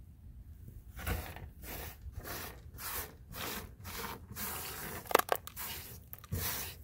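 Plastic bag crinkling and rustling in quick, irregular handfuls as pecans are gathered up and put back into it, starting about a second in, with a sharper click or rattle a little after the middle.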